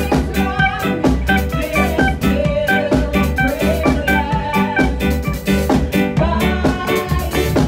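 Live gospel band playing an instrumental passage: electric guitar, electric bass and drum kit, with a steady drum beat.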